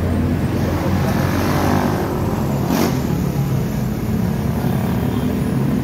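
Steady low rumble of motor-vehicle traffic, with a short sharp sound near the middle.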